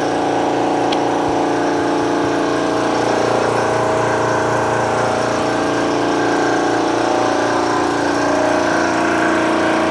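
Air Venturi 220-volt high-pressure air compressor running steadily while pumping a tank up past 4,000 psi.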